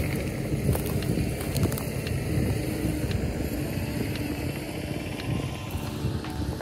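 A mini excavator's engine running steadily, with a few short knocks.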